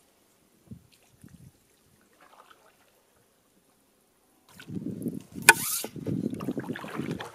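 A few faint drips and small splashes from a canoe paddle, then, from about four and a half seconds in, a louder low rumble of wind on the microphone as the canoe glides toward shore, with one sharp knock about a second after it starts.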